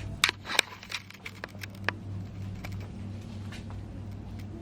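A few sharp clicks and taps in the first two seconds over a steady low hum, then only the hum with faint ticks.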